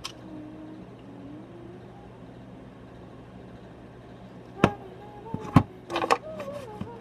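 Sharp clicks and snaps from an old Motorola phone being pried apart: one snap about two-thirds of the way in, a louder one a second later, then a quick run of smaller clicks.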